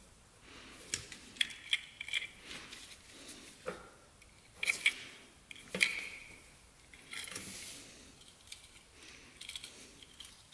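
Scattered small metallic clicks and taps as the disassembled carburetor of a 2006 Arctic Cat 400 ATV is turned over and handled by hand on a workbench, with its float bowl off.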